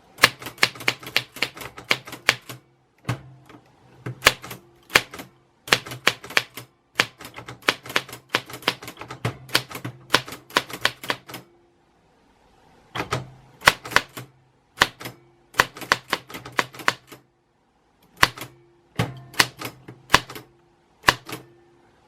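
Typewriter keys striking in quick runs of sharp clacks, several a second, broken by short pauses between runs.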